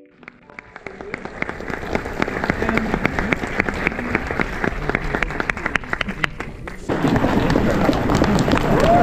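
Audience applauding, building from a few scattered claps into steady clapping, then growing louder about seven seconds in as voices from the crowd join in.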